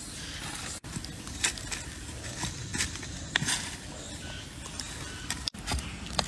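A small curved hand blade scraping and digging in soil and dry leaf litter to unearth wild mushrooms, with scattered crackles and light knocks over a low steady rumble. The sound cuts out for an instant twice.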